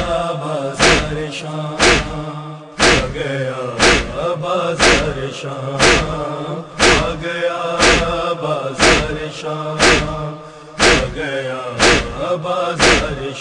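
Nauha chorus of voices chanting a drawn-out lament melody without clear words, kept in time by a sharp percussive beat about once a second.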